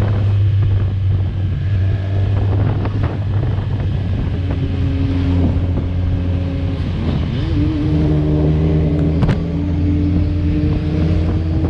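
Motorcycle inline-four engine running under way at a steady cruise, its note stepping up in pitch about two-thirds of the way through. A single sharp click sounds shortly after.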